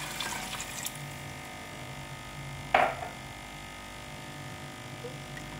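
Water poured from a glass jug into a pot of semolina halwa mixture, splashing for about the first second before the pour ends. A single short, sharp knock about three seconds in.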